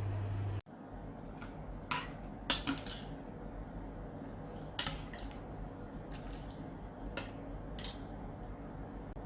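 Utensils clinking against dishes in a series of scattered light clinks, some in quick pairs, after a steady hum cuts off suddenly about half a second in.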